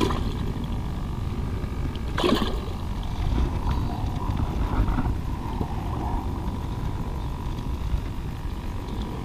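Collapsible fishing bucket dipped into a reservoir's edge to refill it with fresh water, the water gurgling and sloshing as it fills.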